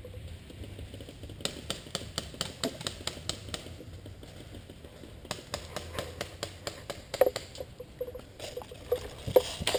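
Irregular sharp clicks and snaps in runs of several a second, over a low steady hum.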